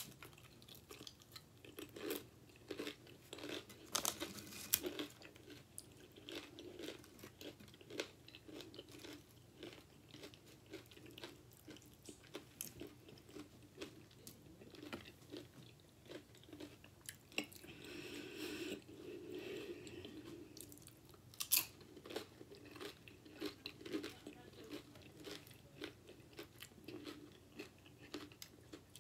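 A person biting and chewing mouthfuls of loaded nachos close to the microphone, with many short, sharp crunches of the tortilla chips.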